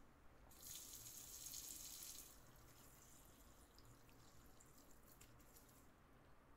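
Faint hiss of water and air escaping from a water purifier pre-filter housing, lasting about two seconds as water starts flowing through it after the inlet tube is connected, then a few faint drips and ticks.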